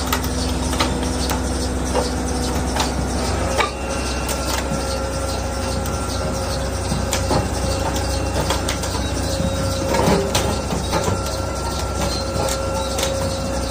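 Caterpillar 320D hydraulic excavator running while the boom and arm are worked: its diesel engine gives a steady low rumble with a faint steady whine, and frequent sharp clicks and knocks of metal come through it.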